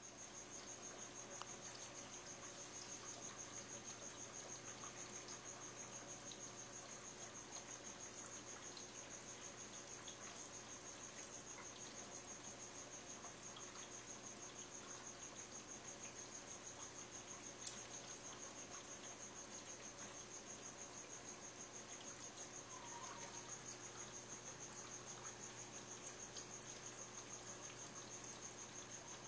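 Faint steady hum of an aquarium filter and air pump with a constant high-pitched pulsing whine over it. One sharp tick comes about two-thirds of the way through.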